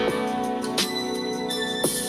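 Background music: an instrumental track with sustained keyboard chords and light percussion.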